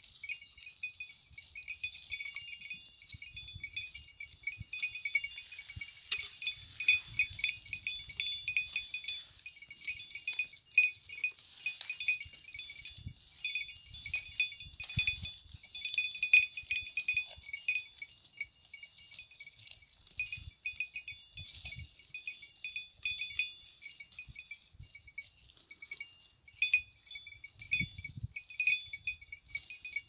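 Small bell on a goat's collar jingling continually as the goat grazes and moves, with soft low bumps and rustles underneath.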